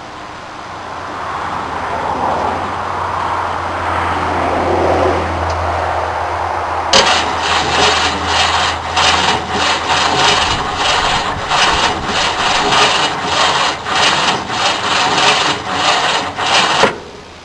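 A 1969 Ford F-100's 390 V8 being cranked by its starter: about seven seconds in, a steady, even churning starts, runs for about ten seconds and stops abruptly without the engine catching. The engine cranks slowly and won't fire. Before the cranking, a low hum builds.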